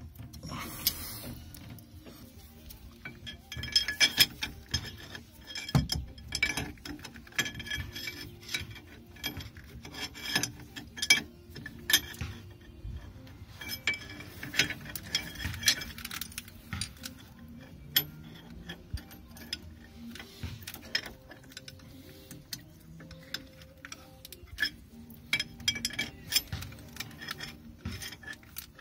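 Hand tools on the output shaft nut of a Velvet Drive 71C marine transmission: a ratchet wrench clicking and metal tools clinking and tapping on steel, in irregular bunches of sharp clicks with a few ringing clinks.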